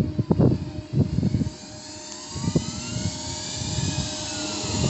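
Class 313 electric multiple unit coming into the platform. Its running noise and a high hiss grow steadily louder as it nears, with faint whines that slowly rise and fall. Low buffeting on the microphone is heard in the first second and a half.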